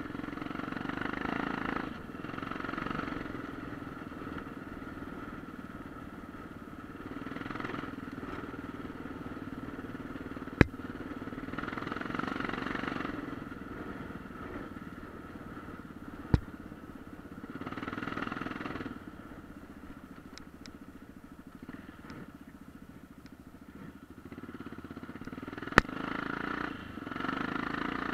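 Off-road motorcycle engine running while ridden on a dirt track, rising and falling with the throttle every few seconds. Three sharp knocks, the loudest sounds, come about ten, sixteen and twenty-six seconds in.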